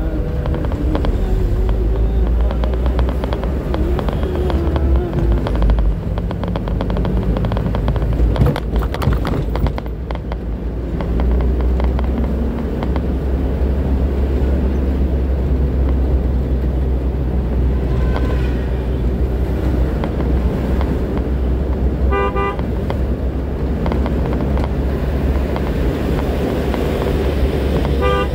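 Heavy low drone of a truck engine and road noise heard from inside the cab while driving. A vehicle horn sounds as a quick series of short beeps about 22 seconds in and again near the end, with a briefer toot around 18 seconds.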